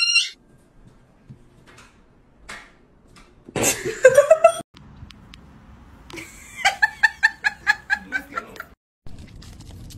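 A person laughing in a quick run of 'ha' bursts, about five a second for roughly two seconds, after a short loud outburst about four seconds in.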